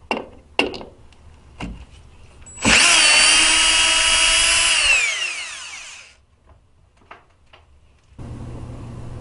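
Cordless screwdriver backing out a door-check mounting screw: a few light clicks, then the motor runs with a steady whine for about two seconds and winds down in pitch as it stops.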